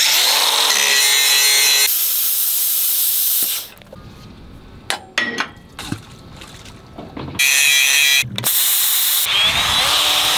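Plasma cutter cutting a round lightening hole in a metal plate: a loud hiss for about three and a half seconds, then a lull with a few clicks, and a second hiss burst later on. A cordless drill runs near the end.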